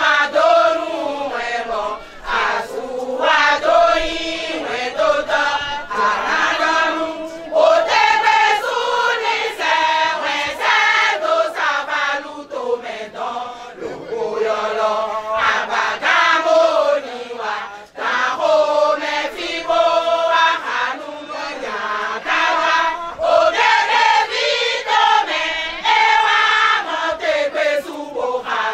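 A group of women singing a chant together, many voices in phrase after phrase, with a short break about eighteen seconds in.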